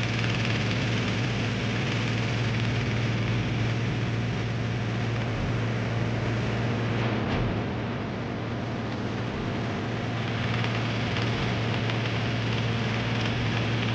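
A boat's motor running steadily as the boat moves across open water: a low, even drone with a hiss of water and wind over it.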